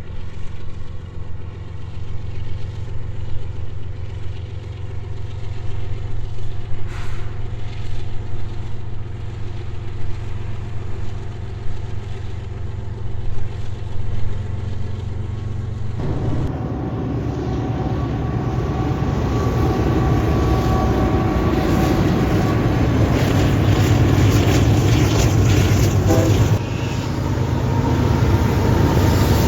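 Freight train diesel locomotives running past with a steady, heavy engine drone. The sound changes abruptly about halfway through and is louder after that.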